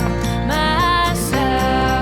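Background song: a sung melody over instruments with a steady bass, between lines of the lyrics.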